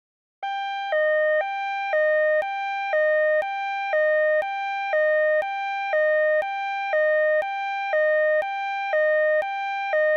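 Two-tone hi-lo electronic siren, switching between a higher and a lower note every half second, the lower note louder, with a faint click at each switch. It starts about half a second in and cuts off suddenly at the end.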